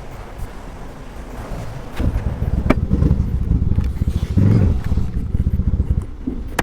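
Yamaha V-Star 1100's V-twin engine running. About two seconds in it gets much louder and works hard, with a sharp click shortly after, then eases back near the end.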